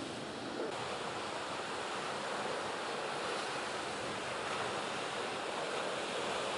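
Ocean surf breaking and washing in, a steady rush of whitewater.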